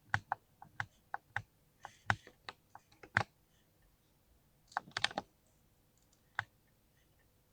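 Typing on a mechanical keyboard with linear switches: irregular keystrokes, a quick run of presses over the first three seconds, a pause, then a short cluster of several keys about five seconds in and a single key press later.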